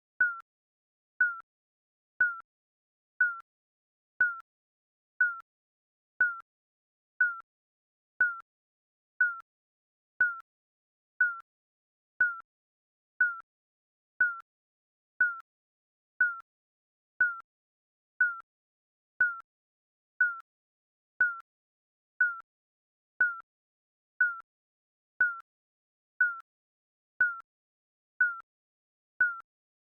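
Digital countdown timer beeping: a short, high electronic beep once every second, each the same pitch and loudness, ticking off the seconds.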